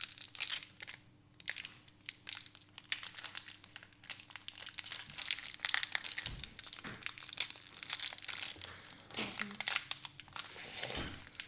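Pokémon trading-card packs and cards being handled: a dense, steady crinkling and rustling with many small clicks, pausing briefly about a second in.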